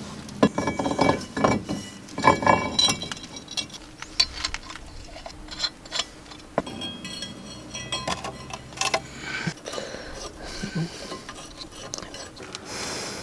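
Irregular metallic clinks and knocks of tools and steel brake parts being handled and fitted while a car's rear hub and brake are reassembled, thickest and loudest in the first few seconds.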